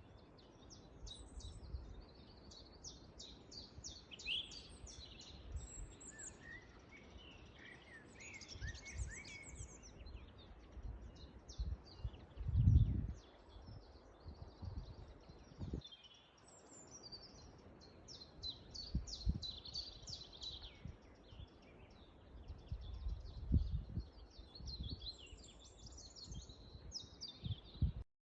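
Wild songbirds chirping and trilling, with repeated short calls through the whole stretch, over irregular low rumbles and thumps. The loudest rumble comes about halfway through.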